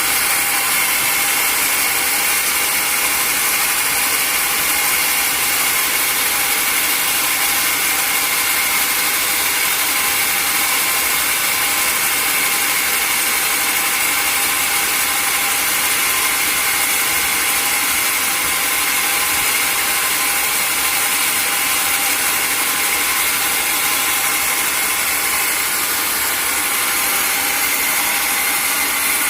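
Sawmill saw running steadily: a continuous mechanical whine with a dense high hiss, unchanged throughout.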